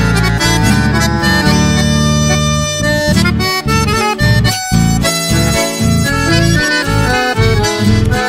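Instrumental break of a chamamé song: an accordion plays the melody in sustained reedy notes over a steady rhythmic bass pulse.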